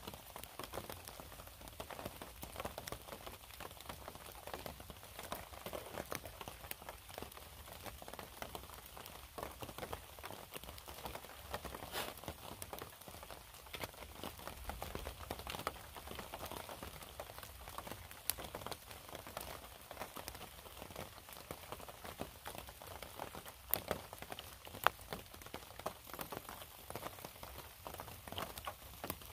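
Light rain pattering: a steady, irregular scatter of small drops.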